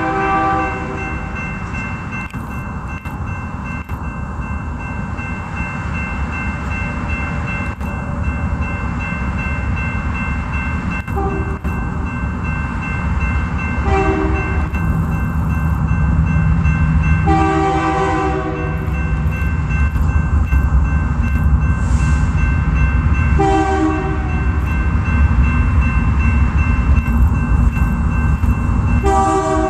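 A BNSF freight locomotive's multi-chime air horn sounding a series of blasts, a few short and one longer, over the steady rumble of the train rolling past.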